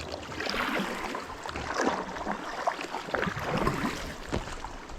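Kayak paddle strokes in the water: irregular splashing and dripping as the blades dip and lift.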